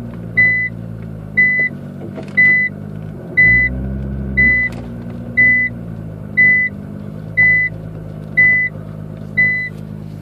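Nissan GT-R R35's reverse warning beeping about once a second, each beep short and high, over the low hum of its twin-turbo V6 running as the car reverses and turns. A few faint clicks can be heard between the beeps, which the owner hears as a creaking noise from the car.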